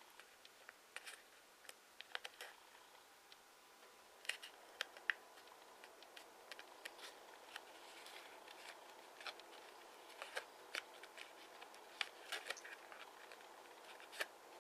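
Origami paper crinkling and crackling in the fingers as its flaps are tucked and pressed into the folded model: faint, irregular small clicks.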